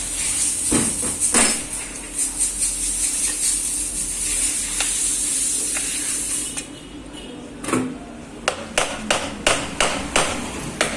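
Hand tools knocking and tapping on a washing-machine motor during disassembly: a few scattered knocks over a steady hiss, then a quick run of sharp taps, about three a second, in the last few seconds.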